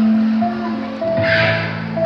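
Live band playing, with electric guitar and drums holding sustained notes. A short hissing crash comes a little over a second in.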